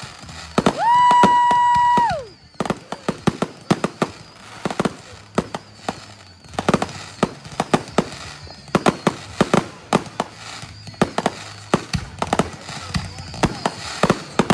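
Fireworks going off: an irregular string of sharp bangs and crackles. Near the start, a steady high whistle-like tone sounds for about a second and a half, then slides down and stops.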